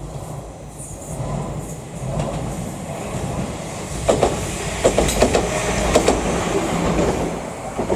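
Train passing close by: a low rumble that grows louder over the first few seconds, then a run of sharp clicks as the wheels cross the rail joints.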